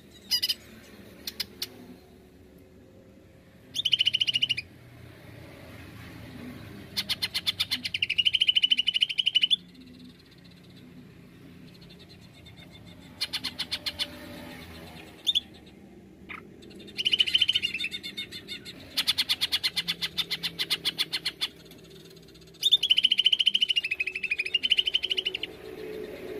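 Male greater green leafbird (cucak ijo) singing in bouts of very rapid, rattling trills. There are about eight bursts, each from half a second to three seconds long, some dipping and rising in pitch.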